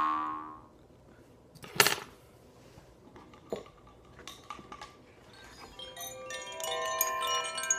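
A jaw harp note dies away at the start, followed by a sharp knock and a few small clicks of handling. About halfway through, koshi chimes begin tinkling, with many overlapping ringing notes that keep building.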